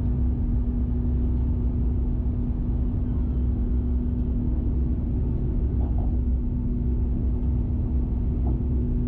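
Airbus A350-1000 airliner, with its Rolls-Royce Trent XWB engines, running at steady power: a loud, even rumble with a constant hum.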